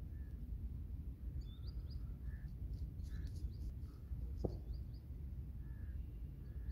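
Small birds chirping in short, faint, scattered calls over a steady low rumble, with a single sharp click about four and a half seconds in.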